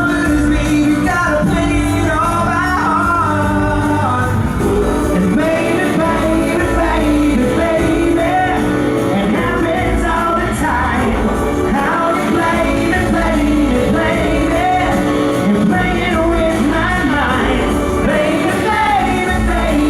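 Male pop vocal group singing live over loud band accompaniment, the voices gliding in melody lines above a steady bass.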